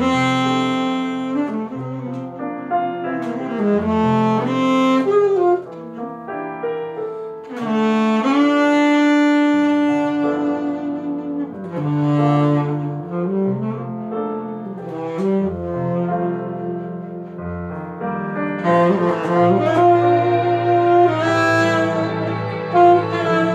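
Saxophone playing a slow, lyrical melody in long held notes over a backing of bowed strings and piano.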